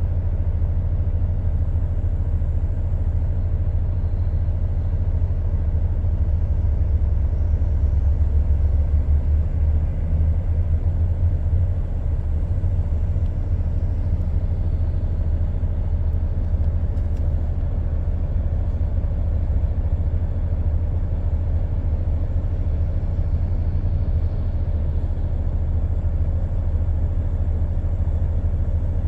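Truck engine idling, a steady low rumble heard from inside the cab while the vehicle stands in traffic.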